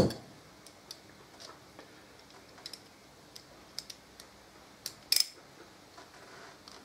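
A small ratchet and socket being picked up and handled against a brake caliper: a sharp clack at the start, then scattered light metallic ticks and a brief quick run of clicks about five seconds in.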